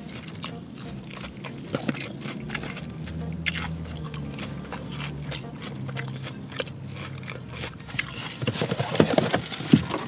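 Close-up chewing and mouth sounds of a person eating noodles, with many small wet clicks. Near the end there is louder rustling as paper packaging is handled.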